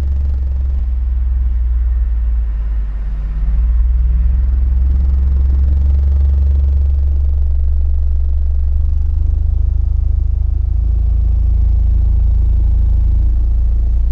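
Two American Bass XR 15-inch dual-4-ohm subwoofers in ported boxes playing a loud low-frequency test sweep inside a vehicle's cabin: a steady deep bass tone that steps up in loudness about four seconds in.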